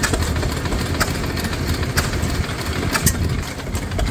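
Vintage flywheel stationary engine running, a steady low throb with a sharp knock about once a second.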